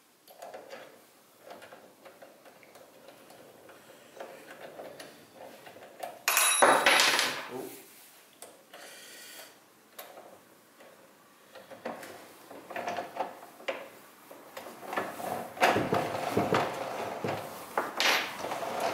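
Thickness planer parts being handled and fitted: scattered knocks and clatters, a louder noisy clatter about six seconds in, and a busier run of clicks and knocks near the end.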